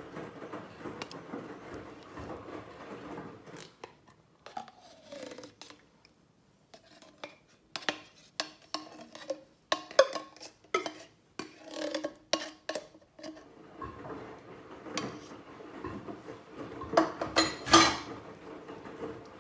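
Kitchen handling sounds: clinks, knocks and scraping of a metal tin and utensils against ceramic bowls as canned beans are served. The knocks are irregular, thickest in the middle, with the loudest clatter near the end.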